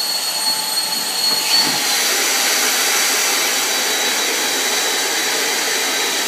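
Black Diamond JetForce avalanche airbag's battery-powered fan blowing at full power as it inflates the 200-litre airbag: a loud, steady rush of air with a high whine over it. This is the mandatory first nine seconds of 100% fan power after the trigger pull.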